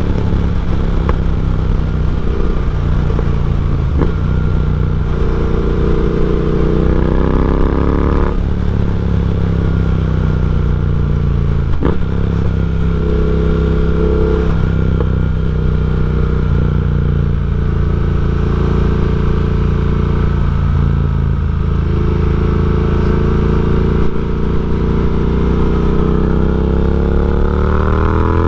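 Triumph Speed Twin's parallel-twin engine running through a decatted aftermarket X-pipe exhaust while riding: the pitch climbs as it accelerates and drops sharply at each gear change, several times.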